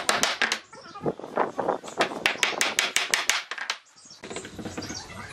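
Hammering: a rapid series of sharp blows, about six a second, that stops about four seconds in.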